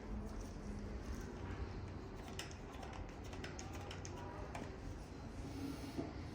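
A few faint, irregular clicks and taps, most of them in the middle of the stretch, over low room noise.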